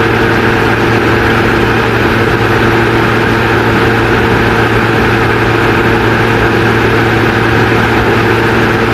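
A steady, unchanging drone with a low hum running under it, like an idling engine.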